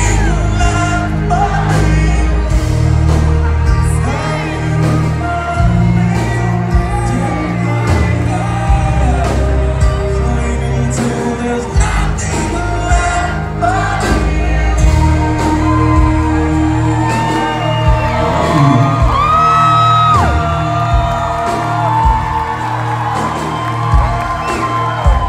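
Live rock band playing loud in a concert hall: a singer's long held notes over heavy bass and pounding drums, heard from within the crowd, with scattered whoops from the audience.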